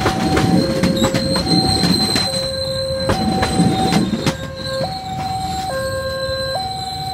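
The coaches of a KA Lokal Bandung Raya passenger train roll past, their wheels clattering and clicking over the rail joints with a thin high squeal. The clatter dies away about four seconds in as the last coach passes. Under it the level crossing's electronic warning alarm keeps stepping back and forth between two pitches.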